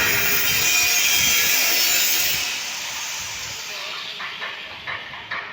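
A loud, even rushing hiss that fades away after about two and a half seconds, followed by a few light knocks.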